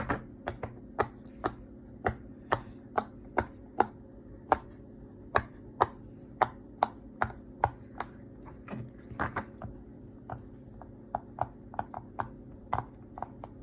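Heart-shaped pop-it fidget toy having its bubbles pressed through one by one on its quiet side: a string of sharp little pops, about one or two a second, with a short pause about ten seconds in.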